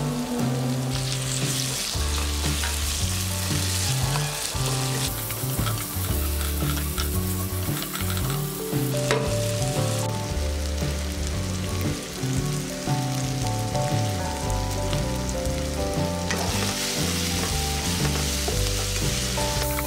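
Onions, green chillies and freshly added chopped tomatoes sizzling as they fry in oil in a non-stick kadai, with a spatula stirring through them near the end.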